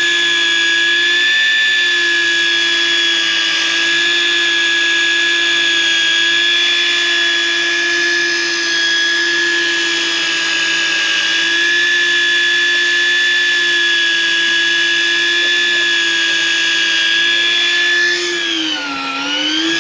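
Daiwa electric fishing reel's motor whining steadily as it winds in braided line with a hooked fish on. Near the end the whine briefly drops in pitch, as if slowed under load, then picks back up.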